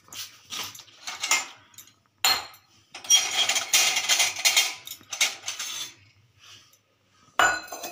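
Stainless steel tumblers and utensils clinking and clattering against each other and the wire dish rack as they are handled and pulled out by hand. The clatter comes in uneven bursts and is busiest in the middle.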